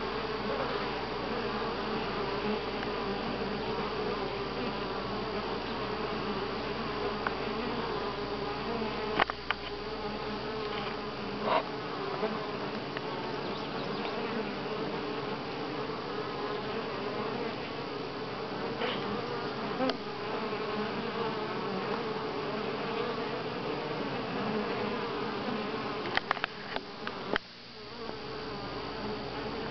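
Steady buzzing hum of many honey bees. A few sharp clicks cut in, with a cluster of them near the end.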